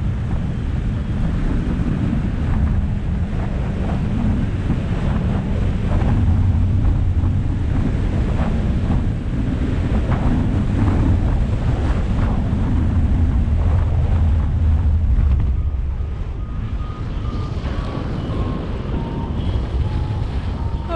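Wind rushing and buffeting the microphone of a camera mounted on a paraglider harness in flight: a strong low rumble that swells and eases with the gusts. Near the end a faint paragliding variometer beeps in short tones whose pitch steps downward.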